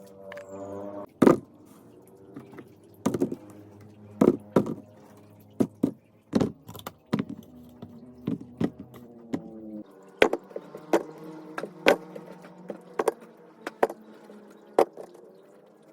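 Kitchen items being handled and set down: a string of sharp knocks and clacks, about one or two a second, over faint steady background tones.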